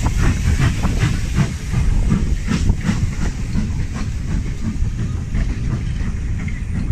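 Steam locomotive hissing steam, with a run of short, sharp knocks over a heavy low rumble.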